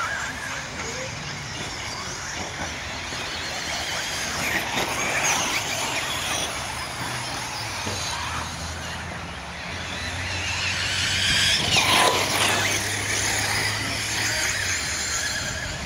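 Several radio-controlled truggies racing on a dirt track, their motors whining and rising and falling in pitch as they accelerate and slow through the corners. The sound swells briefly about two-thirds of the way through, as one car passes closer.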